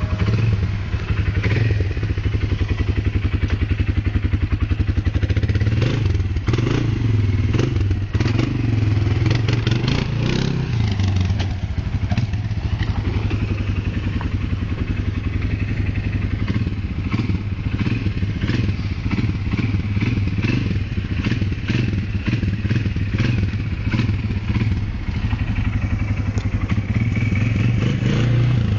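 Kymco MXU 300 ATV's single-cylinder four-stroke engine running and being revved up and down as the quad is ridden, with scattered clattering knocks.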